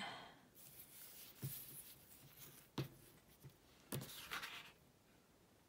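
Faint handling of paper craft pieces on a work surface: three soft taps and a brief light rustle of paper.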